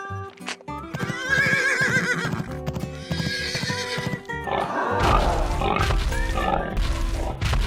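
Cartoon background music with a horse whinnying about a second in. A loud, rough, low rumbling noise joins from about five seconds in.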